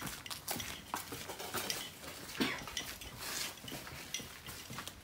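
Irregular footsteps with scattered light clicks and clinks, a few a second, without a steady rhythm.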